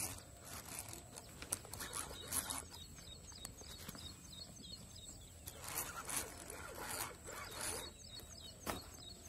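Fishing reel being cranked to bring in a hooked fish: a raspy, rhythmic whirr in spurts, pausing for a couple of seconds around the middle.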